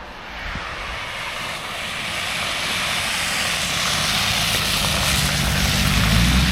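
Wind and road noise from riding an electric motorcycle on a snowy road, a rushing sound that grows steadily louder, with a low drone strengthening in the second half.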